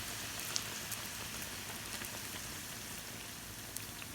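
Hot cooking oil sizzling faintly and steadily while puris deep-fry, with a few small crackles.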